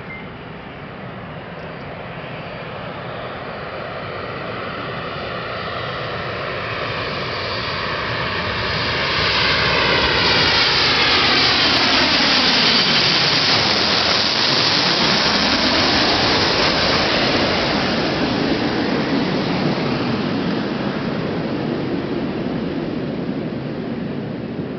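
Jet airliner on its landing approach, engine noise growing steadily louder as it comes in. It passes closest about halfway through with a sweeping, phasing whoosh, then slowly fades as it moves on down the runway.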